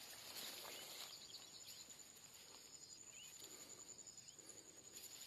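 Near silence: faint open-marsh ambience with a steady high insect whine and a few faint bird chirps.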